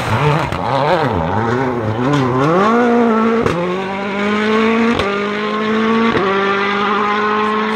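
Rally car engine revving up and down as the car slides through a corner, then accelerating hard away, its pitch climbing through the gears with a sharp crack at each of three gear changes.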